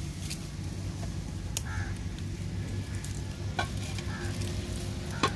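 A spoon scraping tomato-and-onion paste out of a hot pan on the fire, with a few sharp clinks of metal on the pan, over the sizzle of the cooking paste.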